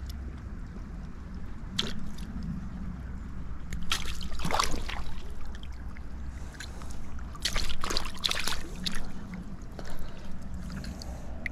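Shallow stream water splashing and sloshing in several irregular bursts as a chub is handled and unhooked in a landing net lying in the water, over a steady low rumble.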